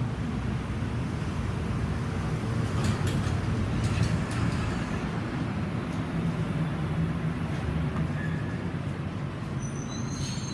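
Vehicle engine idling with a steady low rumble, with a few faint clicks about three to four seconds in.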